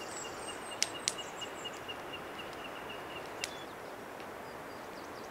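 Birds calling over a steady outdoor hiss: a fast, even series of short high peeps for about three seconds, with higher chirps and a few sharp clicks in the first half.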